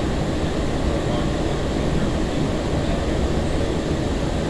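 Steady low rumble and hiss inside a 2002 Breda LRV3 light-rail car standing at a stop, with no distinct clunks or motor whine.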